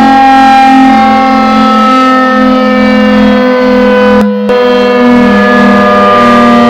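Klaxon CS8 siren sounding a loud, steady wail made of several tones at once, its pitch sagging slowly. The sound breaks off for a split second a little over four seconds in, then carries on.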